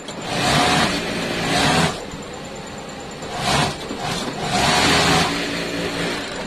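Industrial flatlock sewing machine stitching a T-shirt hem in three runs. A long run comes near the start, a short one a little past the middle, and another just after it, with a steady machine hum between runs.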